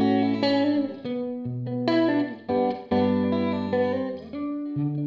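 Clean electric guitar playing a run of ringing chords, a new chord about every half second to a second, through the Sono's valve preamp and Two Notes cab simulation of a Vox-style Voice 65 cabinet, with the simulated mic backed off in the Hall A room so a lot of room sound is heard.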